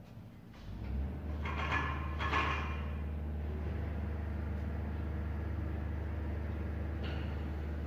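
Soco System T-10 carton sealer's side-belt drive motors switching on about a second in and running with a steady low hum. Shortly after it starts, about a second of metallic scraping and squeaking comes as the top head is handled.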